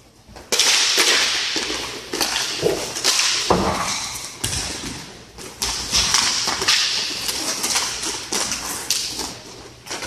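Inline hockey play: skate wheels rolling and scraping on plastic sport-court tiles, with repeated sharp clacks and a few heavier knocks of sticks, puck and bodies, starting suddenly about half a second in.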